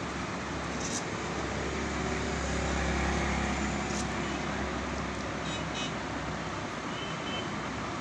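Steady background rumble and hiss, traffic-like, swelling gently in the middle and then settling, with a few faint short ticks. The soldering itself is not distinctly heard.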